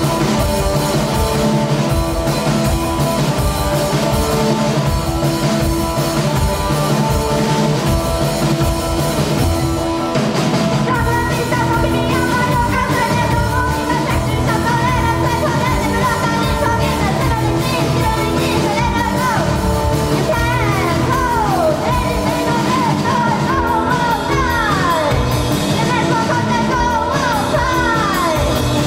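Live rock band playing loud and dense: electric guitars, bass and drum kit, with a voice singing over them. In the last several seconds, repeated high notes slide downward in pitch.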